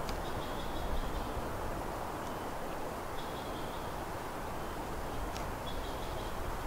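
Steady rushing outdoor background noise, with a small bird faintly singing short, high, even-pitched trills about every two and a half seconds. One or two single faint ticks are heard.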